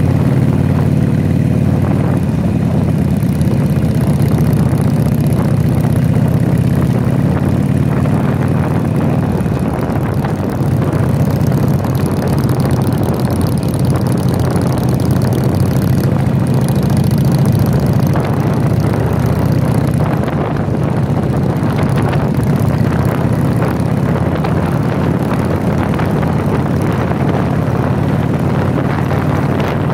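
Harley-Davidson Sportster air-cooled V-twin motorcycle engine running steadily at cruising speed, heard from the saddle with wind rushing over the microphone.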